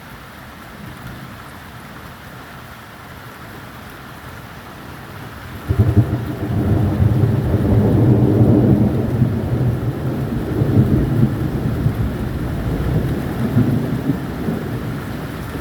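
Steady rain, then about six seconds in a sudden thunderclap that breaks into a long, loud, low rolling rumble of thunder, slowly easing toward the end.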